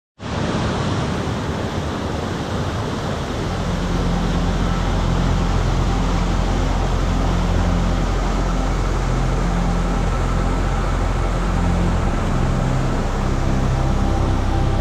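Steady rushing noise of falling water, with low sustained music notes fading in about three to four seconds in.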